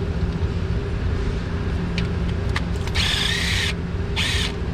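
A power tool runs in two short bursts on the engine's valve cover bolts, with a high whine and hiss, after a few sharp clicks. A steady low hum runs underneath.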